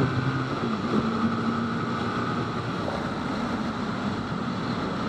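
TVS Apache RR310's single-cylinder engine on closed throttle as the bike slows from about 105 km/h, mostly buried under wind noise on the microphone. A faint engine tone fades out about two seconds in.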